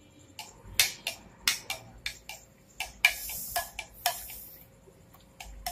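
Metal spoon stirring liquid in a glass jug, clinking against the glass at irregular intervals about a dozen times, with a brief swish of liquid about three seconds in.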